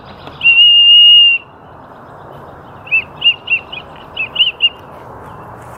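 Small plastic toy whistle blown in one long, steady, shrill note. After a pause of about a second and a half, it gives a quick run of about eight short chirping toots that dip in pitch, like a bird call.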